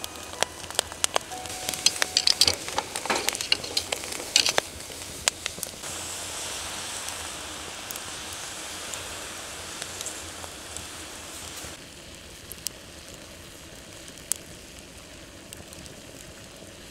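Charcoal fire crackling and popping under a grill of hard clams. From about six seconds in, a steady hiss of the clams' juices sizzling and bubbling in their opened shells takes over, then fades to a quieter sizzle with an occasional pop.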